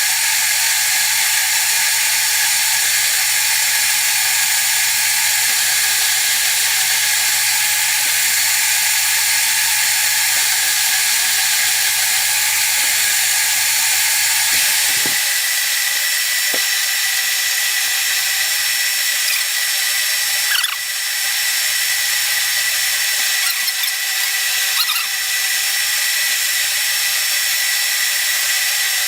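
1956 Axelson metal lathe running steadily with a machine whine and hiss. About halfway through, its tone shifts to a higher steady whine, and a few light ticks follow.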